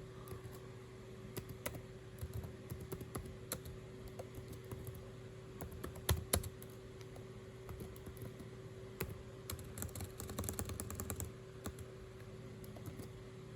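Typing on a computer keyboard: scattered key clicks with a quick run of keystrokes about ten seconds in, over a steady low hum.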